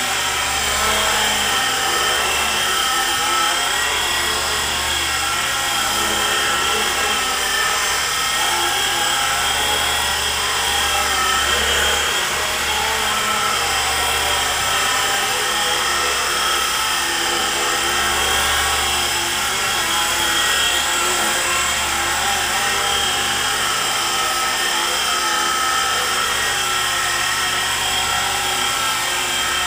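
E-flite SR120 micro electric RC helicopter in flight: its small electric motors whine steadily and the rotor whirs, with a low hum that comes and goes every few seconds.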